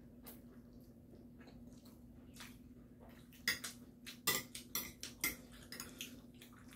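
Chopsticks and tableware clicking against plates during a meal: a few scattered light clicks, then a cluster of sharper clicks and knocks from about three and a half to five and a half seconds in, over a faint steady hum.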